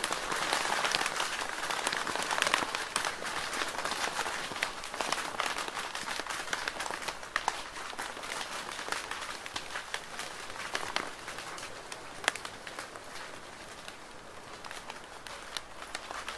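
Rain falling steadily: a dense hiss of drops with sharper single drips clicking through it, a little softer in the second half.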